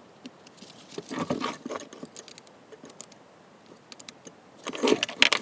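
Small metal clicks and scrapes from adjusting the steel vise's jaw fit, loosening it slightly because it is too tight. One cluster comes about a second in, and a louder one comes near the end.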